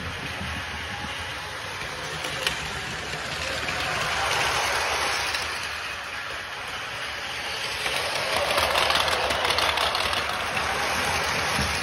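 Battery-powered Plarail toy trains running on plastic track: a steady whir of small motors and rattle of wheels, swelling louder twice as a train comes close.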